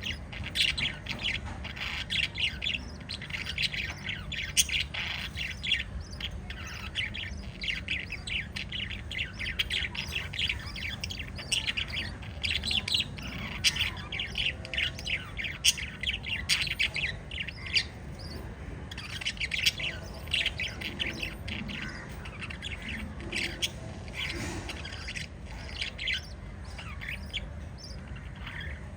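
Several budgerigars chirping and chattering together in quick, overlapping bursts, with short lulls between them, over a steady low background hum.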